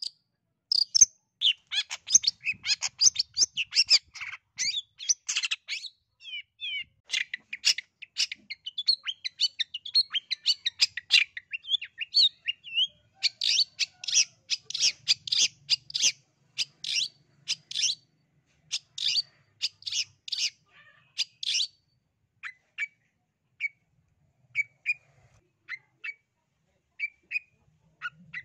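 Long-tailed shrike (East Java cendet) singing: fast, varied runs of short, sharp chattering notes, thinning to sparse single calls in the last few seconds.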